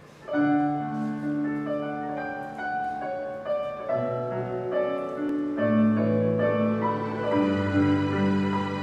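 A slow hymn played on an electronic keyboard in sustained, held chords that change every second or so. It starts about a third of a second in.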